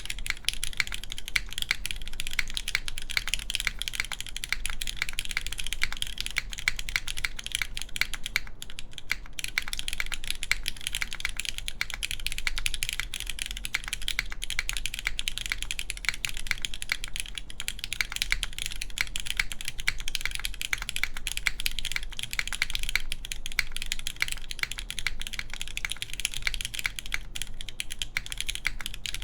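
Steady typing on a gasket-mounted mechanical keyboard with an aluminum plate, lubed linear Cherry MX Black switches and GMK keycaps: a fast, continuous run of keystroke clacks with brief pauses around nine seconds in and near the end. The sound is a little boomy.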